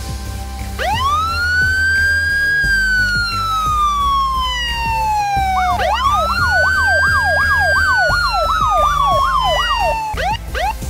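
Electronic police-siren sound effect over background music. A tone swoops up and slowly slides down, then swoops up again with a fast warbling yelp over a second slow fall, stopping about ten seconds in.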